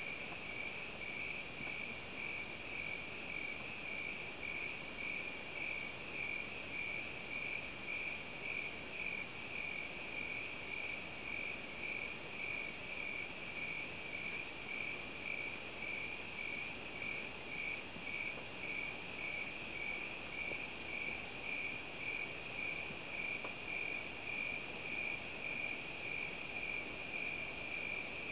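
Crickets chirping: a steady, high, even chirping that pulses in a regular rhythm, a little more than once a second.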